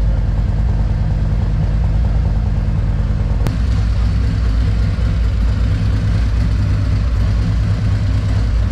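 Harley-Davidson CVO Road Glide's Milwaukee-Eight 121 V-twin idling steadily.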